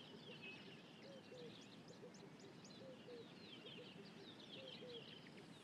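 Faint wild birdsong ambience: many quick high chirps and twitters over a soft steady hiss, with low two-note calls coming back every second or two.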